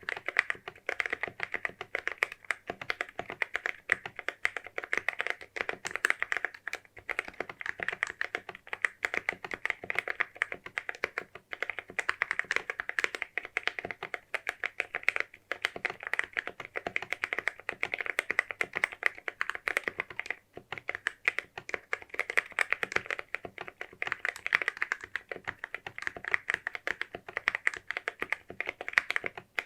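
Typing on a mechanical keyboard fitted with Akko CS Jelly Purple tactile switches: a fast, steady run of keystrokes with a few brief pauses.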